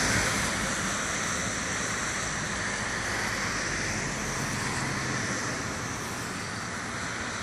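Steady roadside traffic noise with a faint low engine hum, slowly fading.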